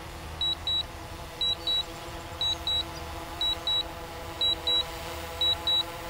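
DJI Mavic Pro remote controller beeping in short high double beeps, one pair about every second: the alert it sounds while the drone is in return-to-home mode. A faint steady hum of several even tones runs beneath.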